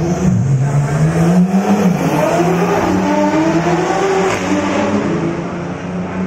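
Drag race car accelerating hard down the strip. The engine note climbs, drops sharply about two seconds in at a gear change, then climbs again, and fades slightly near the end as the car pulls away.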